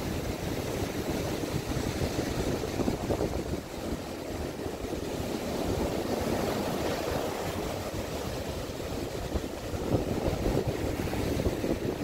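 Ocean surf breaking and foam washing up a sand beach: a steady rushing that swells and eases as the waves come in, with wind buffeting the microphone.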